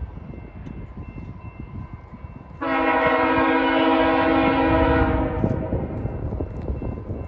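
Locomotive air horn sounding one long blast of several notes together as a chord, starting suddenly a little over a third of the way in and lasting close to three seconds, from a train approaching the station out of sight. A low rumble runs under it.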